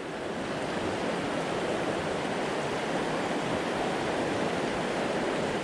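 Fast river rapids rushing steadily, the river running high and swift with snowmelt and rain.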